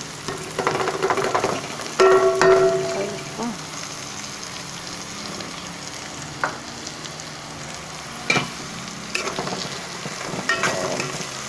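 Bottle gourd (upo) with browned garlic and onion sizzling in hot oil in a metal cooking pot while a spatula stirs, scraping and clicking against the pot. About two seconds in a louder clank rings briefly.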